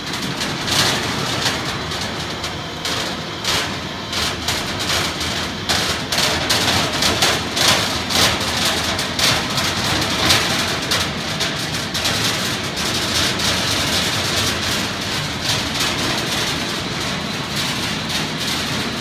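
Heavy-gauge purlin roll forming machine running, its chain drive and forming roller stations giving a dense, irregular metallic clatter.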